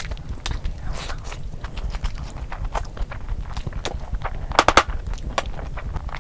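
Close-miked eating sounds: wet chewing and mouth clicks over a mouthful of curry and rice, with a cluster of louder sharp clicks about four and a half seconds in, over a low rumble.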